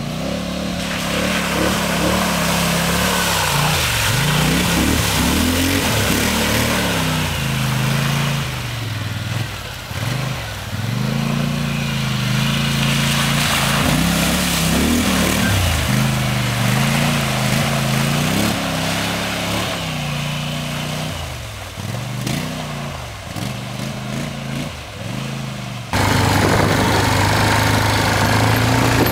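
ATV engine revving up and dropping back again and again as the quad is ridden through a mud hole, with splashing of muddy water as it throws up spray. Near the end the sound cuts abruptly to a steady engine drone.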